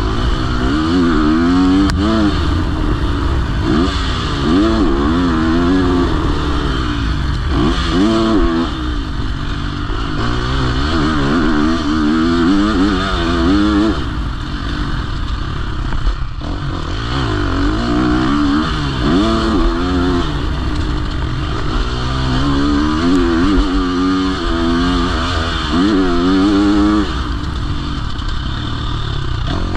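KTM SX-F four-stroke motocross bike engine heard from on board, revving up and falling back over and over as the rider accelerates and rolls off around a dirt track.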